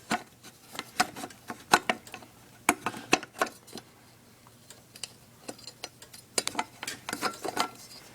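Irregular metallic clicks and clinks as parts of an old Tecumseh small engine are handled and opened up. A quieter stretch about halfway through is followed by a quick run of clicks near the end.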